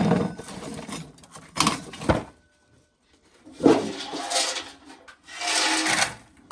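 Dried corn being shelled off the cob, the loose kernels rattling in three bursts a second or two apart, with short pauses between.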